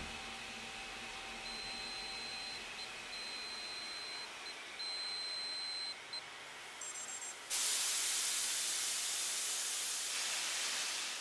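Electronic sci-fi machine sound effects over a steady hiss: a thin high tone that breaks off a few times, a quick run of short high beeps, then a sudden loud rush of hiss that fades out near the end.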